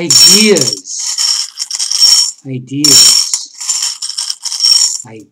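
Small hard objects rattled by shaking them in the hand, in several short bursts about a second apart. Brief voice sounds come between the bursts.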